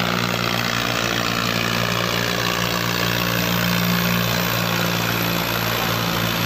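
Diesel engines of a Farmtrac 60 and a John Deere tractor running hard at a steady pitch, under heavy load as the two tractors, chained back to back, pull against each other.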